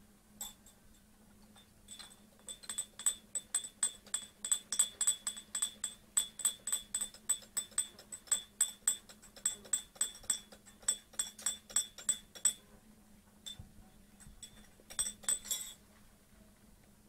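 Domestic cat licking its fur, a fast, even run of small clicking strokes about four a second, which stops for a moment near the end and comes back briefly.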